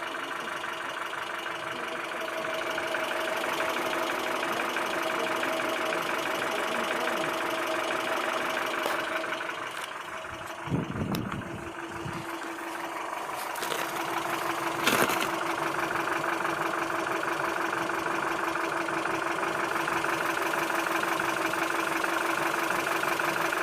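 ZMZ-402 inline four-cylinder petrol engine idling with a knock, caused by play between the piston pins and connecting rods in all four cylinders. A brief low thump comes about eleven seconds in, and a sharp click about fifteen seconds in.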